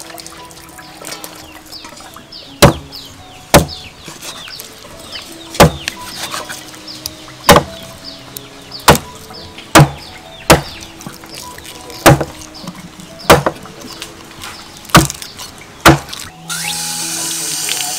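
Cleaver chopping through a whole fish onto a wooden chopping block: about eleven sharp chops, one every second or two. A loud, steady rushing noise starts near the end.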